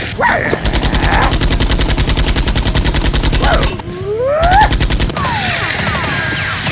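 Automatic gunfire sound effect: a rapid burst of about ten shots a second lasting some three seconds, then a shorter burst, with whizzing tones gliding up and down around the shots.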